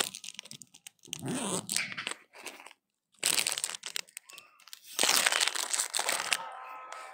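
Close crunching and rustling right at the microphone, in three bursts with quiet gaps, from a macaque perched on a person's shoulders, moving and handling food.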